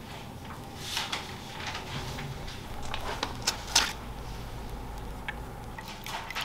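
A few light clicks and knocks from a coffee mug being handled, over a low steady hum. Near the end, coffee starts pouring over ice into a glass mug.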